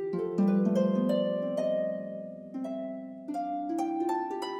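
Gentle background music of plucked notes played one after another, each ringing on under the next.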